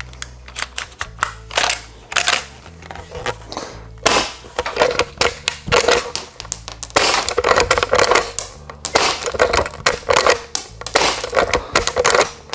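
Elite Force Legends Series CO2-powered lever-action airsoft rifle being cycled and fired about four times: repeated sharp metallic clacks of the lever action working and ejecting its shells, with the pops of the CO2 shots.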